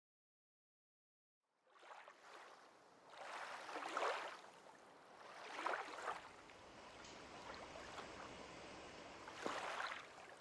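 Faint rushing water, swelling and fading three times.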